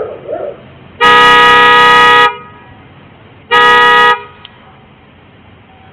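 Vehicle horn sounded twice, very loud and at one steady pitch: a blast of just over a second, then a shorter one about a second later.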